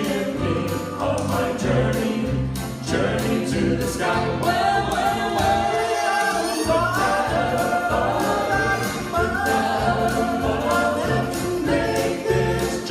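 Southern gospel quartet song: singing in harmony over a backing accompaniment with a steady beat.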